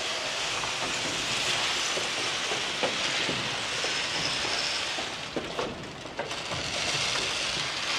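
Steady hiss of rain falling on surfaces, with a few faint knocks.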